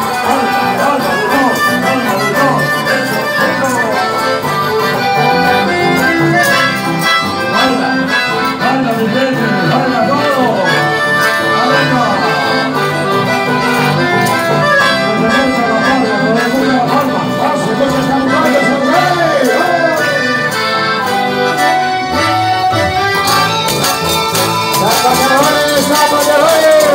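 Live folk band music: an accordion plays the melody over strummed guitar accompaniment in a steady dance rhythm.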